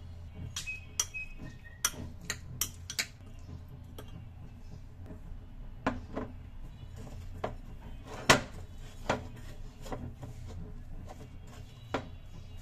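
A metal spoon clinking quickly against a ceramic bowl while mixing, then a few separate knocks of ceramic dishes, the loudest a little past the middle.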